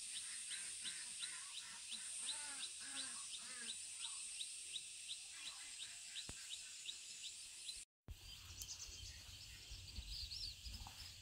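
Countryside ambience: a high chirp repeated about four times a second over a steady high insect-like hiss, with bird calls. The sound cuts out for a moment about eight seconds in, then goes on with a low rumble and scattered bird chirps.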